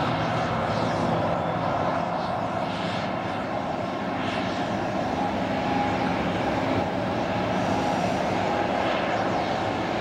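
Boeing 737 jet airliner's turbofan engines running at taxi power as it rolls along the taxiway: a steady, even rush of jet noise with a faint whine.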